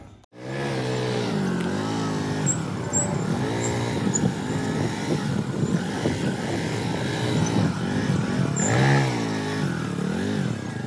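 A motor vehicle engine revving up and down over and over, its pitch rising and falling in repeated swells. It starts abruptly after a moment of silence.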